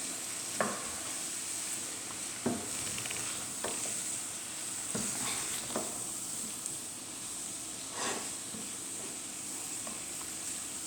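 Shredded cabbage and mushrooms sizzling steadily in a hot pan as they are stirred, the utensil knocking or scraping against the pan every second or two.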